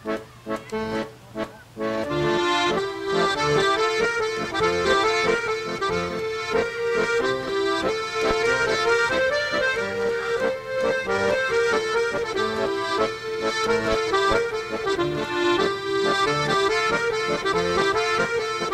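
Background music led by an accordion, in the style of French café music. It starts with short, separated notes and swells to a fuller, louder melody about two seconds in.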